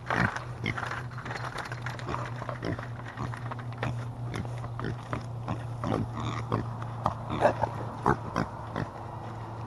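Pigs grunting and oinking in short, irregular calls, with a steady low hum underneath.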